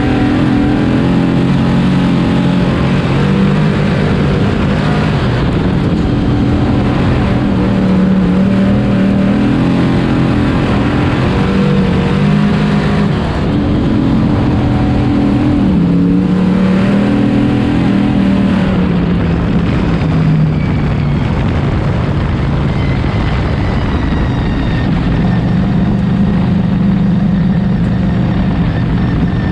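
Dirt Sportsman Modified race car's V8 engine heard from inside the cockpit, running hard at full throttle and easing off over and over as the car laps the oval, its pitch climbing and dropping every few seconds.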